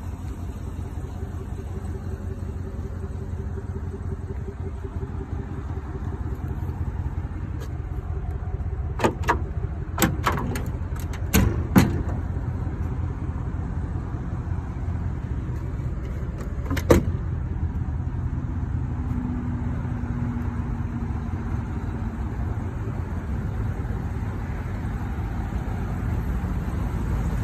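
A steady low rumble, with a cluster of sharp clicks and clunks about nine to twelve seconds in and one more around seventeen seconds, as the pickup's tailgate is unlatched and lowered.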